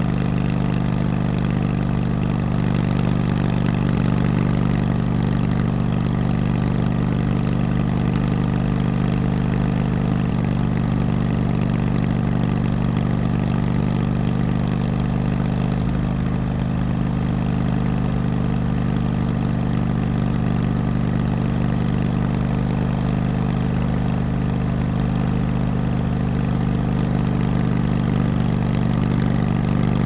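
Harley-Davidson V-twin motorcycle engine idling steadily, its low pulsing note holding an even pitch throughout.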